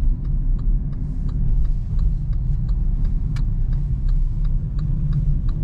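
Car interior on the move: steady low road and engine rumble, with an even ticking about two to three times a second from the turn indicator, signalling for a roundabout.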